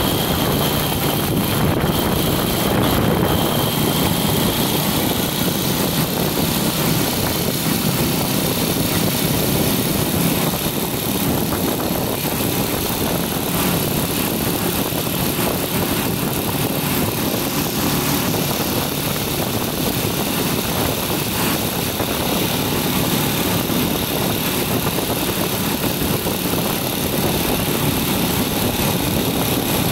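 Steady rush of wind over the microphone on a moving motorcycle, with the motorcycle's engine running underneath.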